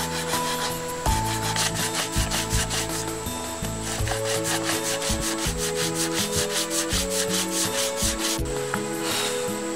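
Red hardwood being hand-sanded with a sanding stick: quick back-and-forth scraping strokes, about five a second, over background music.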